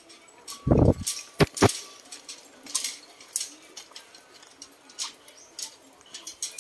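Footsteps and light metallic clicks and clinks while walking across a hanging footbridge with a metal-grating deck, with a few loud thumps and two sharp knocks about a second in.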